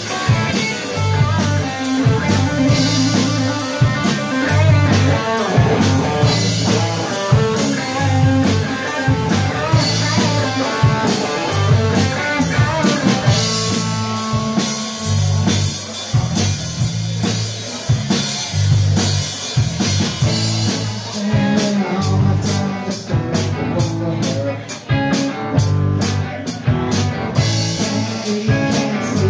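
A live band playing: a drum kit keeps a steady beat under electric guitars.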